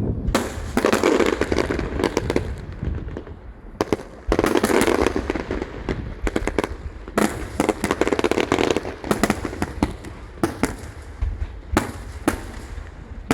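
Fireworks display: three volleys of dense crackling bursts, with many sharp separate bangs in between.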